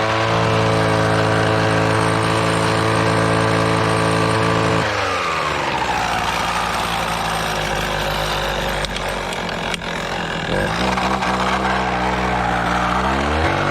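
Husqvarna 240R brushcutter's two-stroke engine running with an even note. About five seconds in its pitch falls and the note breaks up unevenly for several seconds, then it steadies again and climbs slowly near the end. It is running poorly on its worn Walbro carburettor, before a rebuild.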